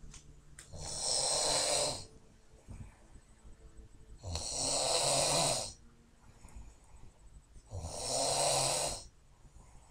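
A woman snoring: three long snores, each over a second, about three and a half seconds apart, with quiet between them.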